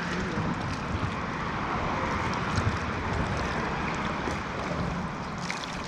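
Steady rush of a fast river current flowing around a small boat, with some wind rumbling on the microphone.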